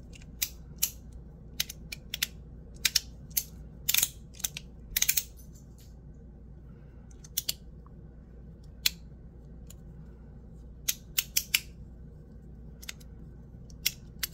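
MOT Ti Rhythm titanium fidget toy clicking as it is worked in the hand: sharp, irregular metal clicks, some in quick clusters, not very loud.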